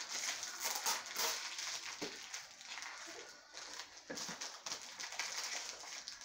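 Wrapping paper and gift packaging rustling and crinkling in irregular handling noises as presents are opened.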